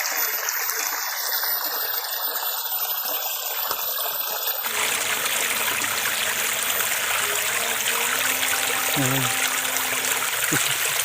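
Small stream running, a steady rush of water that grows fuller about halfway through.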